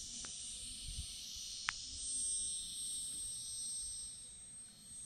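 Engine of a radio-controlled model L-39 Albatros jet running at a steady idle: a high-pitched whine over a hiss. A single sharp click comes a little under two seconds in.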